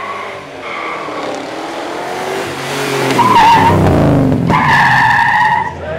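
Supercar engines driving past, their pitch falling as they go by, with high, steady tyre squeal that is loudest in the second half.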